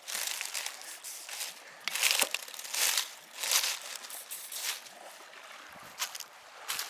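WD-40 aerosol can sprayed in a series of short hissing bursts, roughly one a second, lubricating launch hardware that has sat outside all winter so it does not jam.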